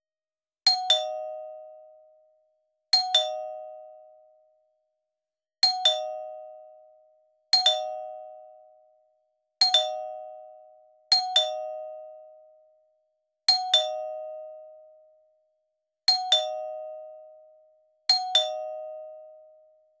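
Electronic doorbell chime made from mixed xylophone, marimba and chime virtual instruments, ringing a falling two-note 'ding-dong' nine times at uneven intervals. Each pair is two quick strikes, high then low, that ring out and fade.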